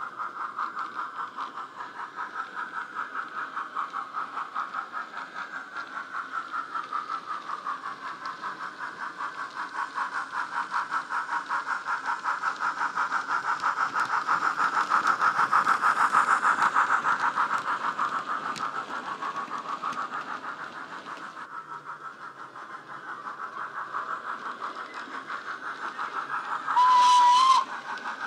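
Digital steam locomotive sound from a LokSound 5 decoder running a Wheeltappers LNWR Precedent class sound file, played through the small built-in speaker of a Bachmann model locomotive: steady rhythmic exhaust chuffs that swell to their loudest about halfway through as the model passes close, then one short whistle blast near the end.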